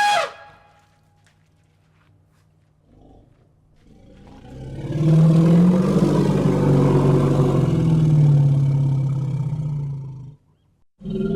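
Elephant giving a long, loud, low rumbling roar that builds up about four seconds in and breaks off suddenly about six seconds later. The end of a high trumpet call fades out at the very start.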